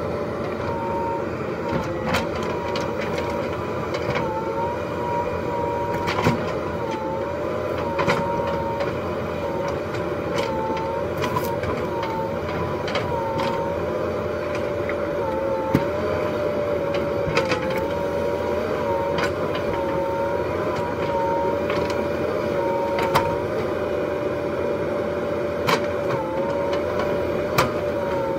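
JCB 3DX Super backhoe loader's diesel engine running under load as the backhoe arm works, with a steady whine that wavers and dips slightly in pitch. Sharp knocks come every few seconds as the bucket moves the logs.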